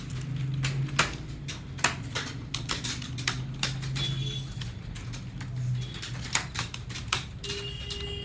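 Fast, continuous typing on a keyboard: a stream of irregular key clicks, several a second, with a steady low hum underneath.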